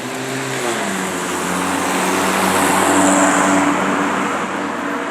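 Road traffic passing close by. An engine's tone drops in pitch just under a second in as one vehicle goes past, then a rush of engine and road noise builds to its loudest around three seconds in and fades again as the next vehicle passes.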